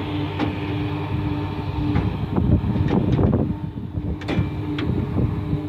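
Farm tractor engine running steadily, with a stretch of rattling and knocking about halfway through.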